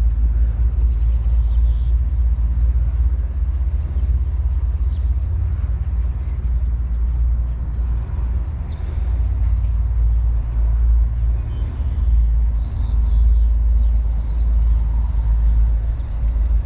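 Wind rumbling on the microphone: a steady low rumble that rises and falls, with faint high chirps over it.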